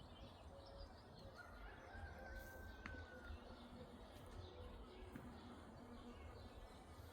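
Faint, distant bird calls, among them one held whistle-like note about a second and a half in, over a steady low rumble of outdoor background noise.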